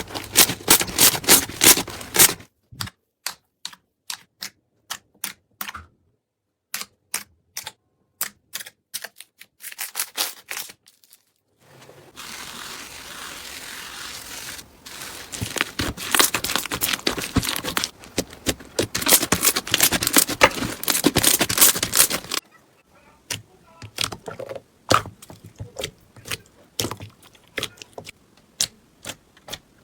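Hands squeezing and pressing slime: runs of sharp clicks and pops, with stretches of denser crackling and a few brief silences between them.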